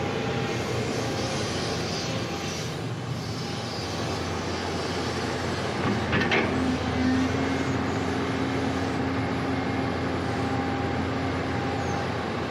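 Sany hydraulic excavator's diesel engine running steadily under work. About halfway through there is a single clank, after which a steady whine holds.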